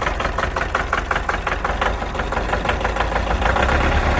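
Kubota L4701 tractor's diesel engine idling just after restarting, with an even pulsing knock of about eight beats a second that softens after a couple of seconds. It is running a little rough as the last air is purged from the fuel system after water contamination.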